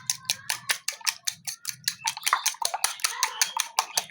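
Raw eggs and salt being beaten in a bowl: a utensil clacking against the bowl in a fast, even rhythm of about six or seven strokes a second.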